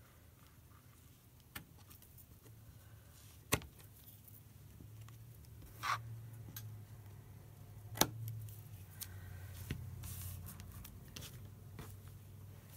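Scissors snipping through fabric, with a few sharp clicks and the clink of metal bangles on the wrist as the hand works. A faint low hum runs underneath.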